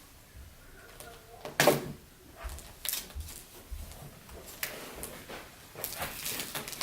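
Plastic toy packaging being handled and opened: scattered clicks, crinkles and knocks, the loudest about one and a half seconds in.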